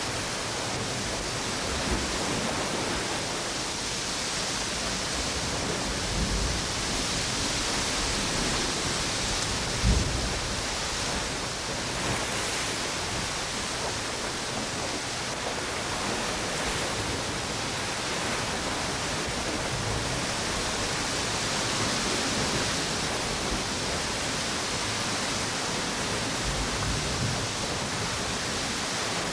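Strong wind and ocean waves on a beach, making a steady rushing hiss, with a few short low thumps from gusts, the loudest about ten seconds in.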